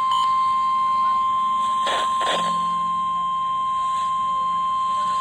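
NOAA Weather Radio warning alarm tone, a steady single 1050 Hz tone sounded ahead of a new severe thunderstorm warning. Two short crackles of static cut through it about two seconds in.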